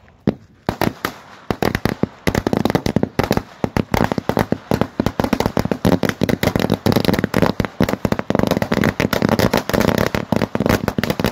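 A string of firecrackers going off: a few scattered sharp bangs, then from about two seconds in a fast, unbroken rattle of cracks.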